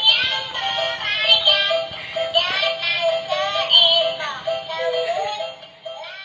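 Spacebaby SB302 baby walker's dolphin music toy playing an electronic melody, note after note; it fades out near the end.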